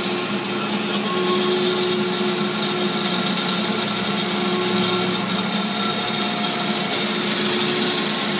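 Amada HA-250W automatic horizontal band saw running: a steady mechanical noise with an even hum under it.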